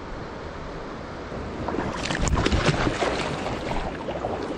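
River water running over rocks in a shallow riffle, with wind on the microphone. The noise swells for a second or so about two seconds in, with irregular splashy crackle.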